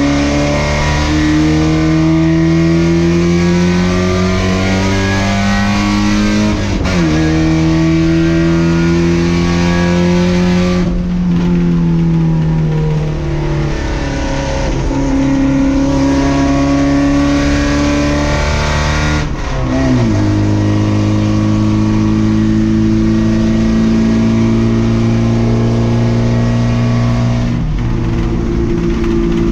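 Race car engine heard on board, pulling hard with its pitch climbing steadily. There are upshifts about 7 and 19 seconds in, each a sudden drop in pitch, and the revs fall off for a couple of seconds around the middle. A steady hiss of road and wind noise runs underneath.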